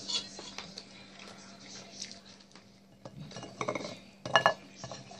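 Cutlery clinking against a ceramic dinner plate as food is picked up and moved around. There are scattered light clicks, then a cluster of sharp, ringing clinks between about three and a half and four and a half seconds in, over chewing.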